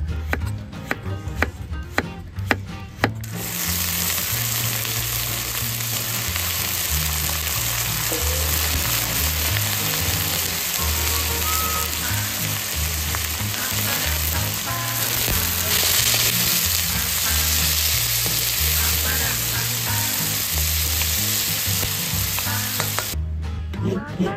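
Food frying in hot oil in a pan, an even loud sizzle that starts abruptly about three seconds in and cuts off near the end, after a few sharp knocks. Background music with a steady bass line runs underneath.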